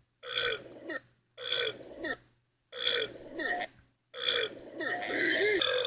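A run of burps, four in a row, each followed by a brief dead silence, with the last one drawn out longest.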